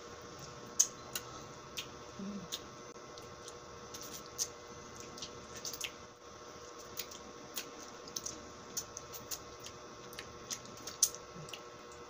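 Scattered wet mouth clicks and smacks of someone sucking and eating a sugar-dipped lemon slice, picked up close by a clip-on microphone. A faint steady hum runs underneath.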